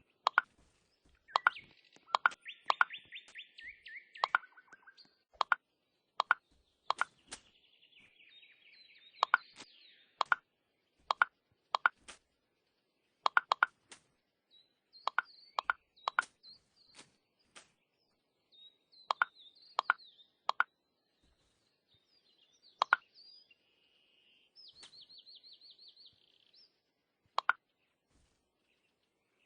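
Sharp, irregularly spaced clicks or knocks, roughly one every second or so, with birds chirping and trilling in the background.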